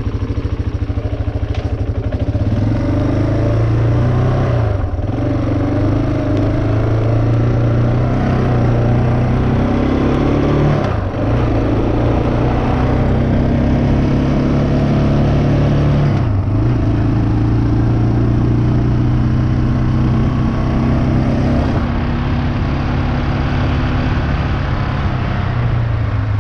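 Yamaha Moto-4 350 ATV's single-cylinder engine pulling on a test ride after a new carburettor throttle cable was fitted. Its note climbs under throttle and dips sharply three times before climbing again.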